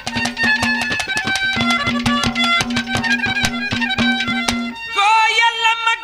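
Live Haryanvi ragni music between verses: rapid drum strokes over a steady low held note and a melody line. Near the end the drumming stops and one long wavering melodic note carries on.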